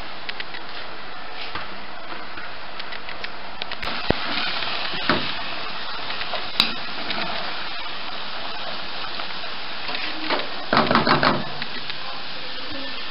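Wooden spoon stirring and scraping a pot of thick sauce over a steady sizzling hiss, with scattered clicks and a quick run of about five knocks near the end.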